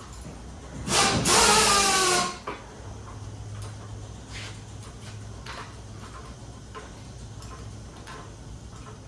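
A power drill runs for about a second and a half, its whine rising in pitch, then stops; a low steady hum and a few light knocks follow.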